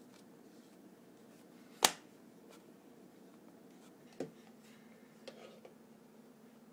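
Hand tools clicking against the plastic casing of a remote control being taken apart: one sharp, loud click about two seconds in, a softer click about two seconds later, then a few faint ticks, over a faint steady hum.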